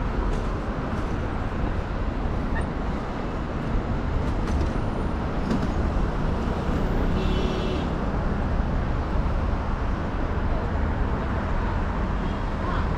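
Steady city street traffic: a continuous low rumble of vehicles running along the road.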